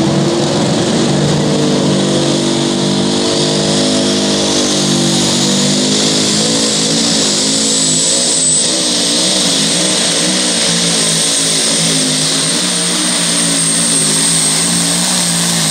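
Two-wheel-drive pulling truck's engine at full throttle hauling a weight-transfer sled. A high whine rises over the first several seconds and then holds steady, while the engine note wavers up and down through the middle of the pull.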